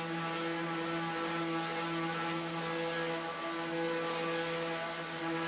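Electric random orbital sander running steadily, a constant motor hum over the hiss of the pad, sanding down putty-filled screw holes on a plywood frame.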